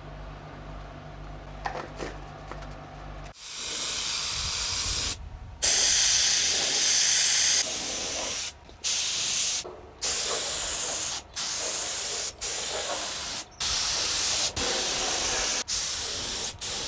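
Compressed-air paint spray gun spraying high-build primer in a run of passes, each one to two seconds long and stopping abruptly as the trigger is let go. Before the first pass, about three seconds in, only a steady low hum is heard.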